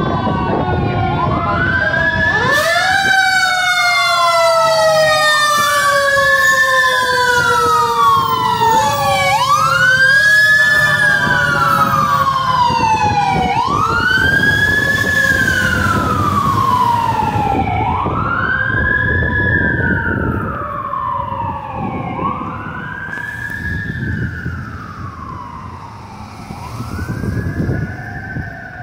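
Fire truck sirens from a ladder truck and an engine wailing, each cycle rising quickly and falling slowly, about every four seconds, with two sirens overlapping in the first half. The sound is loudest about ten seconds in as the ladder truck passes close, then fades over the last third, over the low rumble of idling traffic.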